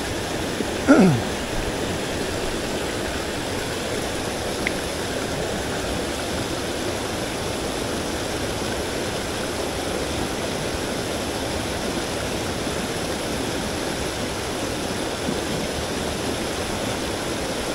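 Steady rush of a swollen headwater mountain stream, an even unbroken sound of flowing water. About a second in, a brief, loud sound falls quickly in pitch over the top of it.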